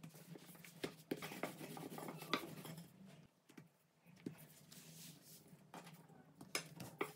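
Rolling pin working yeast dough on a board: soft rubbing strokes with scattered light knocks and taps, over a faint steady low hum.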